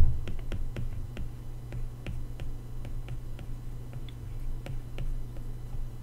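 Stylus tapping and clicking on an iPad's glass screen while handwriting: a string of faint, sharp ticks, several a second, over a low steady hum.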